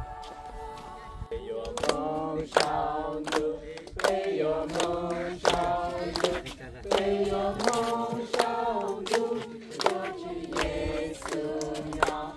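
Choir-like singing: voices in a slow song with long held notes, starting about a second in after a sustained chord.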